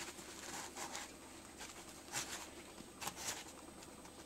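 Paper towel rustling and rubbing against a wet inkjet printer cartridge as it is wiped dry, in a few brief, faint rustles.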